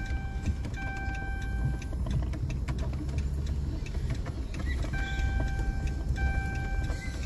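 Inside a vehicle's cab while it drives slowly over rough ground: a low engine and road rumble with scattered rattling clicks. A steady electronic tone sounds for about a second at a time, twice near the start and twice in the second half.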